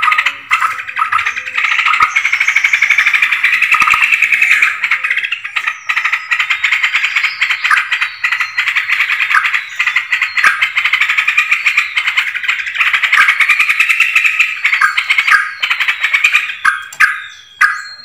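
Yellow-vented bulbuls (trucukan) calling in a loud, dense chorus of rapid chattering notes, with a few short falling whistles in the middle; a bird-lure call recording.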